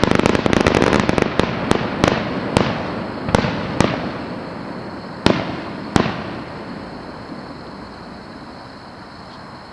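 Fireworks going off: a fast run of sharp bangs over a rumble that thins out, two last loud bangs about five and six seconds in, then the rumble and echo die away.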